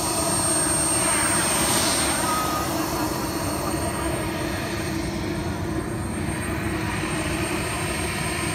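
Radio-controlled Viper sport jet's small K-100 turbine flying past: a steady jet whoosh with a thin high whine, swelling as it passes about two seconds in and then easing off as it flies away.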